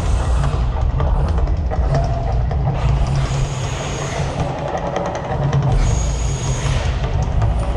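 The Mirage volcano show's drum-heavy soundtrack and deep rumble over outdoor loudspeakers, with two hissing rushes about three and six seconds in.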